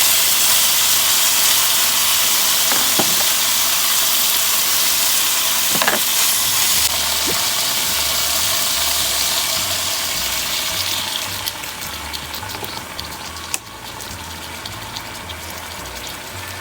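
Water added to a hot pan hissing and sizzling loudly as it boils off into steam. The hiss eases off about eleven seconds in and drops further a couple of seconds later.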